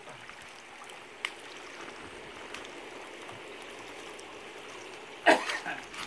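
Steady trickle of running water into a shallow foot bath, with a single sharp click about a second in and a louder rustling tear of corn husks being stripped a little after five seconds.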